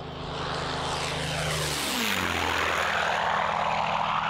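P-51 Mustang's V12 piston engine during a flypast: a steady propeller drone that drops in pitch about two seconds in as the plane passes, with a rushing noise over it.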